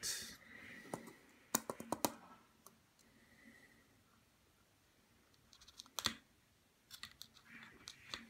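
Scattered light clicks and taps from handling: a few together about a second and a half in, a single sharper one about six seconds in, and several more near the end, over a quiet room.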